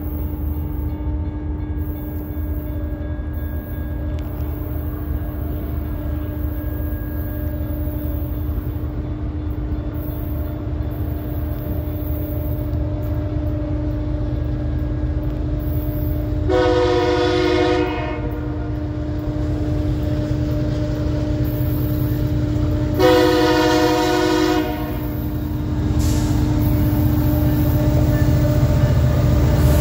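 BNSF SD70ACe diesel locomotive approaching under power, its engine rumble growing louder, likely in notch 8. Two blasts of its Nathan K3LA five-chime horn sound a little past halfway, about six seconds apart, the second slightly longer.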